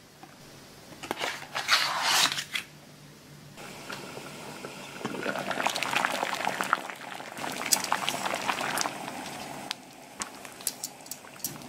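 Packaging rustles briefly as the cardboard box is handled. Then water in a pot at a rolling boil bubbles and crackles steadily around a submerged retort pouch, easing near the end to a few sharp clicks and drips.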